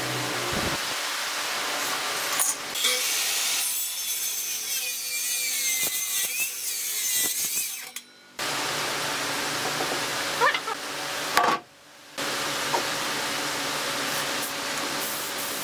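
Power tools working wood: a motor runs under load with a steady noisy rasp of cutting or abrading wood. The sound breaks off abruptly twice, briefly, and there are a few squeaky scrapes in between.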